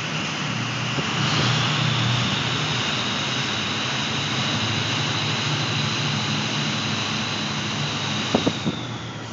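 2003 Ford 6.0 Power Stroke V8 turbo-diesel running, its turbocharger giving a high, steady whistle over the low engine note. The whistle rises a little in pitch about a second in and drops away near the end, where a few sharp clicks are heard.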